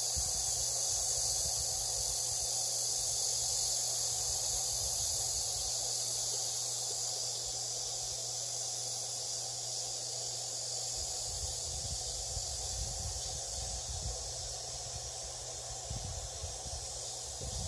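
A steady, high, unbroken chorus of summer insects. Some low rumbling comes in over the last few seconds.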